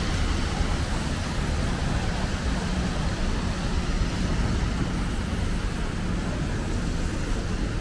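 Steady city street traffic noise: a continuous low rumble of vehicle engines.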